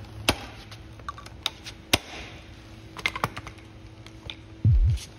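A few sharp metal taps, spaced unevenly, from a hammer striking a 10 mm socket held on a valve spring retainer of a BMW 535i cylinder head, to knock the valve keepers loose, with lighter metallic clicks between. Near the end comes a loud, low double thump like a heartbeat.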